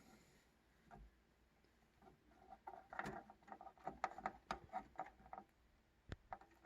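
Faint handling of a PC power supply's 24-pin ATX cable and connector: a cluster of small plastic clicks and rustles in the middle, then a few sharp clicks near the end as the connector is pressed onto the motherboard socket.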